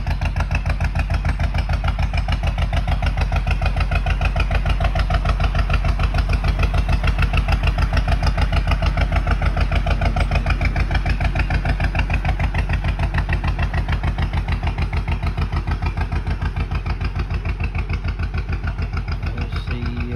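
Narrowboat's diesel engine chugging with a steady, rapid beat as the boat passes close by. It is loudest about eight seconds in, then slowly fades.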